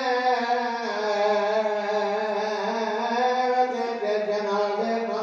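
A man's voice chanting one long drawn-out note into a microphone in the melodic style of majlis recitation. The pitch steps down slightly about a second in and again near the end.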